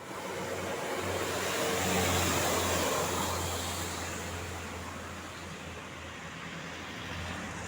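Road vehicle driving past: a steady low engine hum under tyre and road noise that swells to its loudest about two seconds in, then slowly fades.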